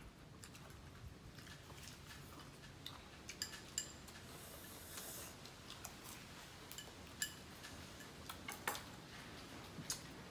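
Faint, scattered clicks and taps of chopsticks against porcelain rice bowls and plates while eating, with a brief rustling hiss about four seconds in.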